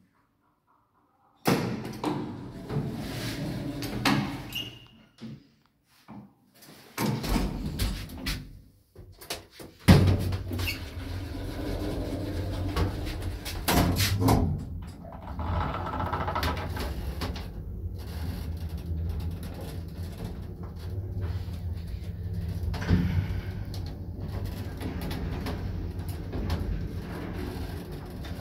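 Elszyk passenger lift: clatter and knocks of its doors being opened and shut, ending in a sharp loud knock about ten seconds in, then a steady low hum of the car travelling up, with an odd click along the way.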